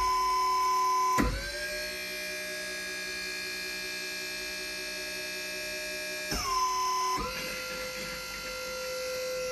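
Electric hydraulic pump motor running with a steady whine. Its pitch shifts three times, each shift starting with a short click: once about a second in, then around six and seven seconds in, as the cylinders are switched from the phone.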